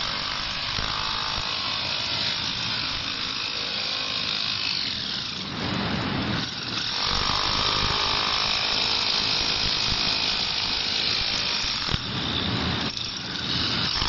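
Hilti electric concrete breaker hammering a chisel bit into a concrete step, a continuous rapid clatter of the tool chipping the concrete away. It eases off briefly twice.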